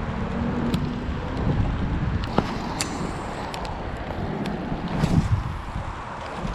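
Wind rumbling on the microphone during heavy rain, with a few scattered sharp ticks.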